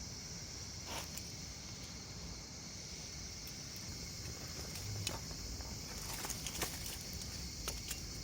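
Quiet outdoor ambience: a steady high-pitched hiss, with scattered sharp clicks and light knocks, a few more in the second half.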